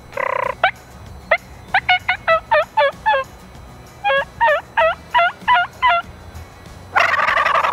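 Turkey yelping in two quick runs of about seven notes each, then a long rattling gobble starting about seven seconds in.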